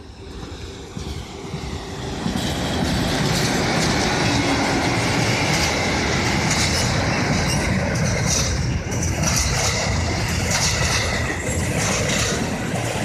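Freight train passing close at speed: the rumble grows over the first two seconds as the locomotive arrives, then holds loud as the covered wagons go by, with repeated wheel clacks over rail joints and a thin squeal from the wheels.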